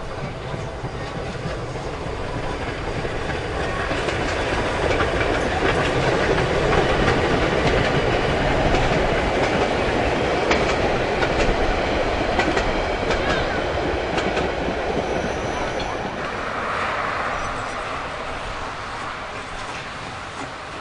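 Steam tram train passing: a small steam locomotive and its wooden coaches rumbling along the track, swelling to a peak in the middle and fading away. Wheels click over the rail joints as the coaches go by.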